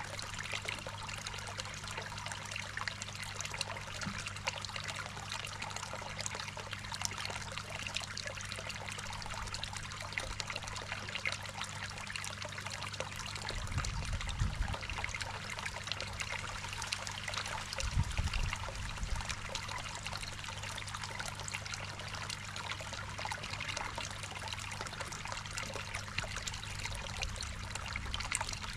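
Water trickling and splashing steadily into a garden koi pond, with a steady low hum underneath. Two brief low rumbles come about 14 and 18 seconds in.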